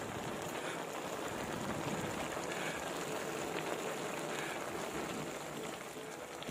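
Pan of vegetables and fried tofu cooking in their sauce, giving a steady sizzling hiss.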